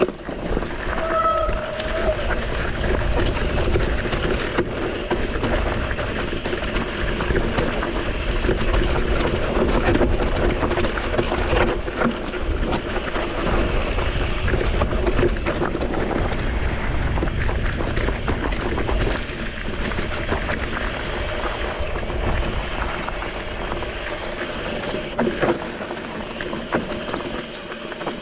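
Mountain bike rolling fast downhill over loose volcanic gravel and rock, with wind rushing over the GoPro microphone: a constant rumble and hiss with many small clicks and rattles from the tyres and bike.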